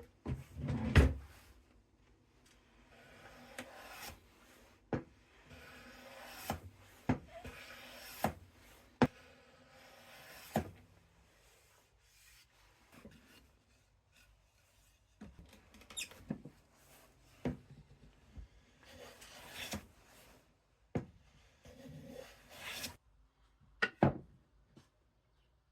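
Hand plane pushed along the wooden arms in scraping strokes about a second long, with sharp knocks of wood set down and handled between strokes.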